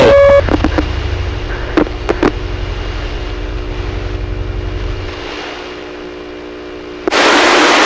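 CB radio receiver between transmissions: a short beep as the last station unkeys, then band static with faint steady tones, a low hum and scattered crackles. About seven seconds in, a loud rush of hiss comes as another station keys up.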